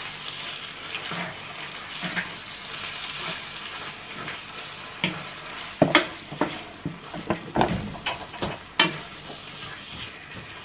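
Chicken pieces sizzling as they fry in butter in a frying pan, stirred with a wooden spatula. From about halfway through, the spatula knocks and scrapes against the pan several times.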